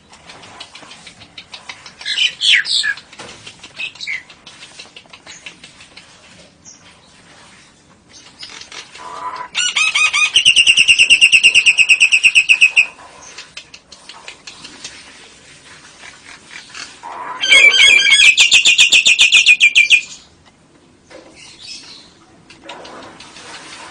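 Caged birds calling: a short call about two seconds in, then two long, rapid, chattering trills of about three seconds each, one near the middle and one about seventeen seconds in, with fainter chirps between.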